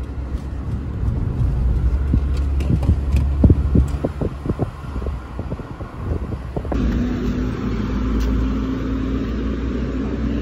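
Road noise from a moving car: a loud, low rumble with a run of wind gusts buffeting the microphone in the middle. After a cut about two-thirds of the way in, a steadier traffic hum with a held engine drone.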